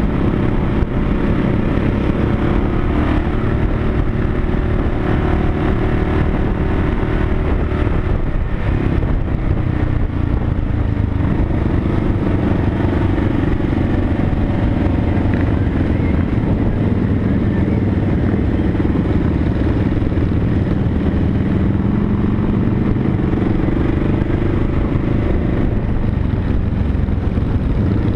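Motorcycle engine running at a steady cruise, heard from the moving bike with constant wind rush over the microphone. The engine note dips about nine seconds in, then climbs slowly.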